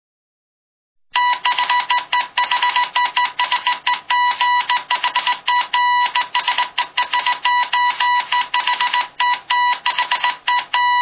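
Morse code sound effect: a high beeping tone keyed on and off in a quick run of short and longer beeps, with clicks, starting about a second in.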